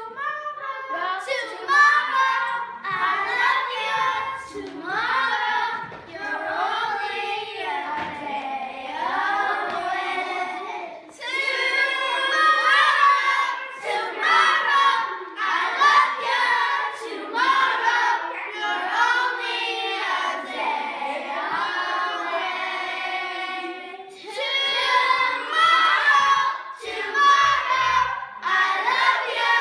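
A group of children singing together without accompaniment, in sung phrases with brief breaks about 11 and 24 seconds in.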